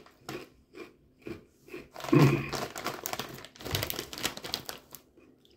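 Plastic chip bag crinkling as it is handled and lifted: a few light scattered crackles at first, then a dense stretch of crinkling in the second half that stops shortly before the end.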